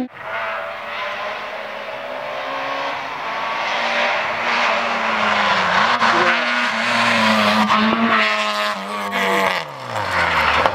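Peugeot 106 rally car's engine running hard at high revs as it approaches on a rally stage, growing louder, its pitch dropping sharply near the end as the car passes.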